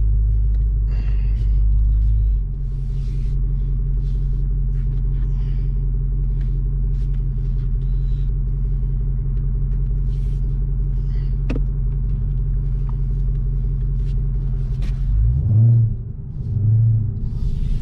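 Dodge Hellcat Redeye's supercharged 6.2-litre V8 running at low revs: a steady deep rumble, with two short swells near the end.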